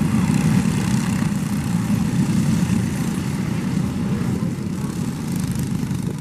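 A pack of racing go-karts with their engines running at speed, a dense buzzing drone that gradually fades as the karts pull away.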